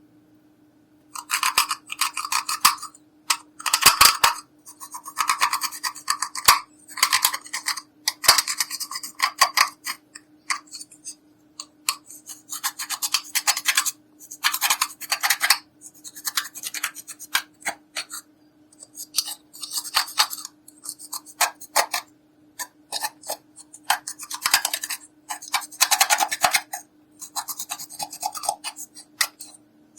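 Clear slime being worked by hand with makeup and glitter mixed in: many short, irregular squishing and crackling bursts, some in quick runs, with brief pauses between them.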